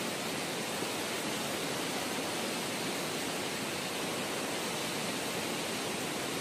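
Steady rushing noise of a swollen, muddy river in flood, running without change.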